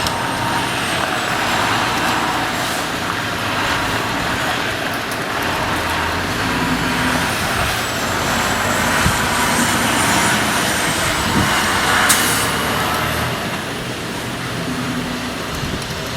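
Strong gusting wind rushing over the microphone around a decorative farm-style windmill spinning and furling in high winds. A faint high whine slowly rises and falls through it, with a brief sharp click about twelve seconds in.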